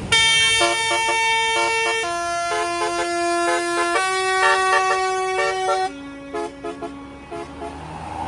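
Tour bus basuri musical horn playing a melody: long held notes that step to a new pitch about every two seconds, with quick short notes over them. It gets quieter about six seconds in.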